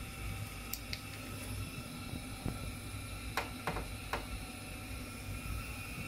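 A steady low hum with a faint hiss, broken by a few faint short clicks and taps, three of them close together a little past the middle.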